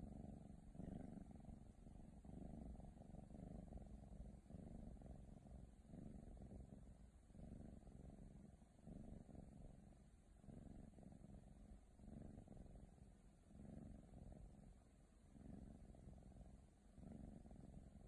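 Ragdoll kitten purring, a low rumble that swells and fades with each breath, about once every second and a half.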